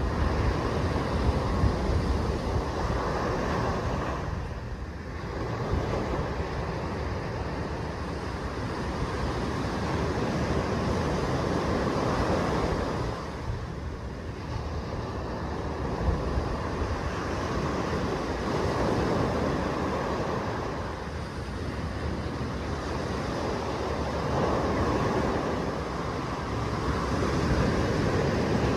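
Small waves breaking and washing up a sandy beach, a continuous surf wash that swells and eases every eight seconds or so.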